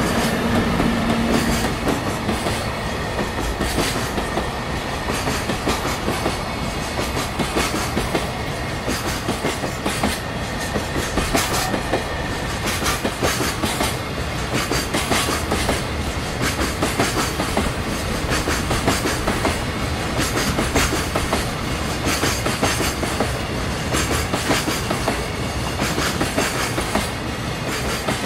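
Long container freight train rolling past close by, its wagons' wheels clattering in a steady stream of clicks over the rail joints.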